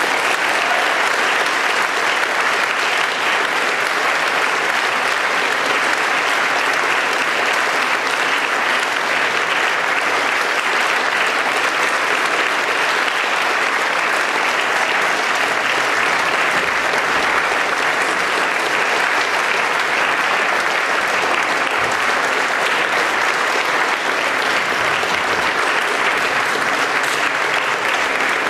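Concert audience applauding steadily without a break.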